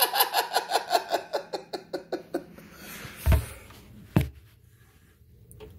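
A person's laughter, a rhythmic ha-ha-ha that fades away over the first two seconds. Then comes a dull thump and, about a second later, a sharp knock as the phone is handled.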